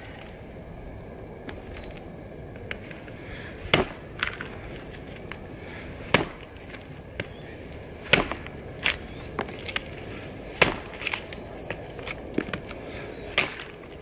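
Bark River Bravo Crusader knife chopping into a thin dead pine trunk: about half a dozen hard chops, irregularly spaced a second or two apart, with lighter knocks and wood cracking between them. Near the end the top of the trunk cracks off.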